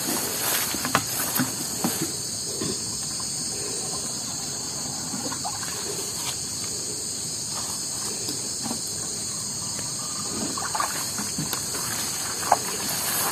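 Steady high-pitched insect chorus, with faint scattered rustles and footsteps through wet undergrowth.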